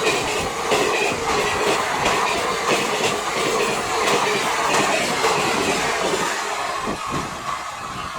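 Indian express passenger train passing at speed, its wheels clattering over the rail joints in a quick run of clicks over a steady rumble, easing off a little near the end.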